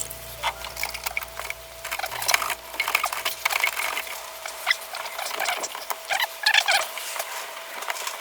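Irregular scratching and rubbing: many short scrapes and clicks at an uneven pace.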